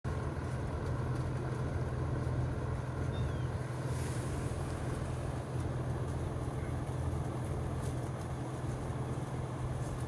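Outdoor unit of a Pioneer Diamante low-ambient inverter mini-split heat pump running in heating mode in sub-freezing air: a steady low hum from its compressor and fan.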